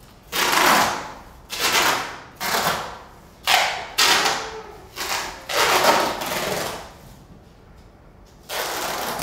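Improvised live percussion sound: about seven sharp, noisy strikes at uneven intervals, each fading over half a second to a second. After a lull, a steadier hissing burst comes near the end.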